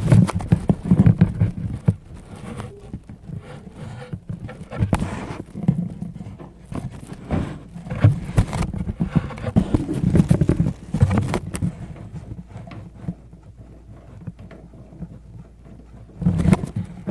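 Packing peanuts shifting and rustling around a phone buried in a box as the box is carried, with irregular muffled knocks and bumps; quieter for a few seconds near the end.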